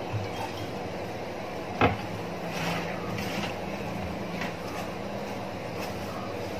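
Steady low mechanical hum, with one sharp knock about two seconds in and a few faint ticks.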